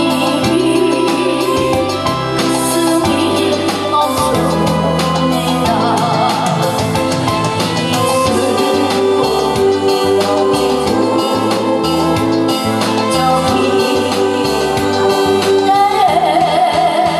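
A woman singing into a microphone over backing music, her held notes wavering with vibrato, with a steady bass line underneath.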